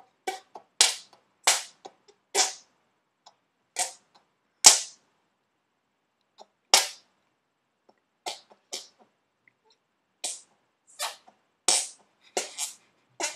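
A person making sharp popping and clicking sounds with his own body, one at a time: about fifteen short pops at irregular spacing, the loudest about five seconds in.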